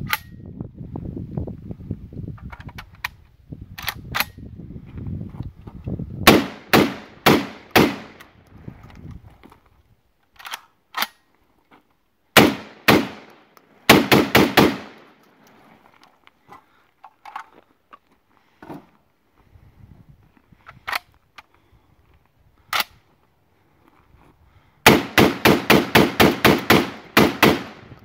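Semi-automatic box-magazine shotgun firing. The shots come in short quick strings with pauses between, and a rapid string of about ten shots near the end, each with a short echo.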